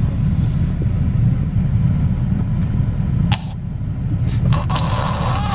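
A child snoring in a moving car, over the steady low rumble of the road, with a sudden noisy breath about three seconds in.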